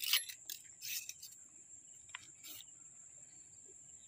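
Crickets chirring: one steady high-pitched drone, with a few faint, short scratchy clicks in the first half.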